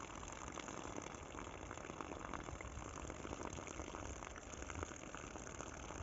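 Running water trickling and splashing steadily: a soft, even rush with a fine crackle.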